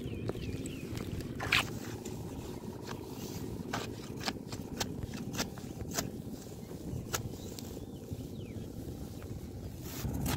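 Hands scraping and tearing through wet mud and grass: scattered short, sharp clicks and scrapes over a steady low rumble.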